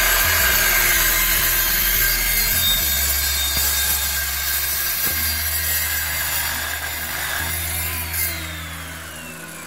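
Evolution cold cut saw with a 7-1/4 inch carbide blade cutting through 1/8-inch-wall steel pipe, a steady loud metal-cutting noise over the motor's whine. About eight seconds in the motor is let go and winds down with a falling whine.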